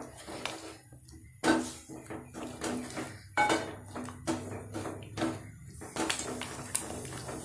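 Wooden spatula stirring a thick sambar mixture in an aluminium pot, scraping and knocking irregularly against the pot's sides and bottom as the ground spice powder is mixed in.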